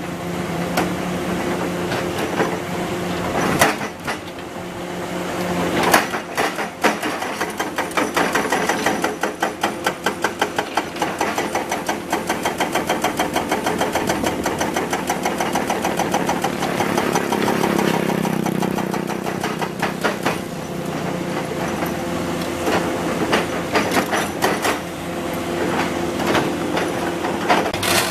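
Komatsu PC200 excavator's diesel engine running with an even, rapid pulse, its pitch rising briefly as it revs up about two-thirds of the way through. Two sharp knocks stand out in the first quarter.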